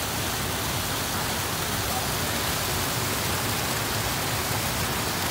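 Water pouring over a low river weir: a steady, even rushing.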